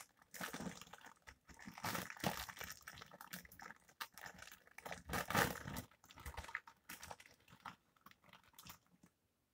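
Clear plastic food packaging crinkling and rustling as the bag is handled and pulled open, in irregular rustles that are loudest about two and five seconds in and die away near the end.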